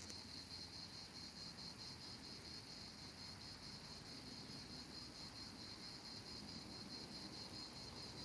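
A faint, steady chorus of singing insects: one continuous high-pitched, fast-pulsing chirr.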